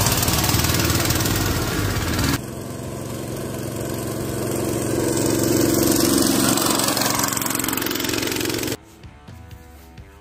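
Honda GX200 single-cylinder four-stroke engine of a homemade go-kart running under load in two cut-together clips, the second getting louder as it revs up. About nine seconds in it cuts off abruptly to quiet guitar music.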